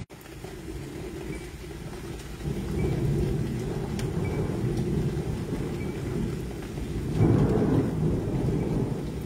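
Thunder rumbling in a tornadic storm: a deep rumble that swells about two and a half seconds in and is loudest near the end.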